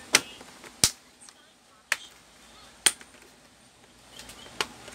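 Five sharp plastic clicks, roughly a second apart, from the laptop being handled.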